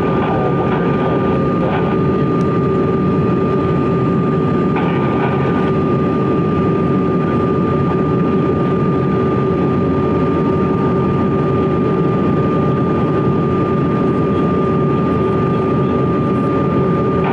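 Steady cabin roar of a CRJ-200 regional jet in flight, from its rear-mounted General Electric CF34 turbofans and the airflow, with two steady whining tones over it.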